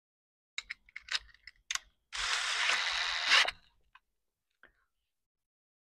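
A DeWalt 20V MAX cordless drill runs for about a second and a half with a steady high whine, drilling out a stripped exhaust manifold bolt hole in an aluminum cylinder head to take a thread insert. A few light handling clicks come before it starts.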